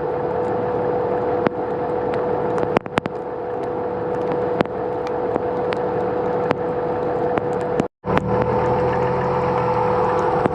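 Off-road vehicle engine running steadily with a constant hum, scattered with sharp clicks and taps; the sound drops out completely for a moment about eight seconds in, then resumes.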